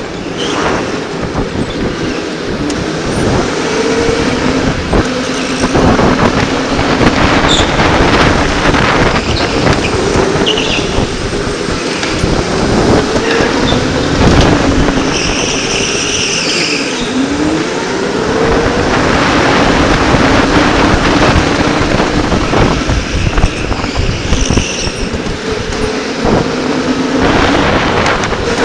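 Electric go-kart motor whining, its pitch falling and rising with speed through the corners, with wind buffeting the helmet-mounted microphone. Two brief high squeals, a third of the way in and again near three-quarters.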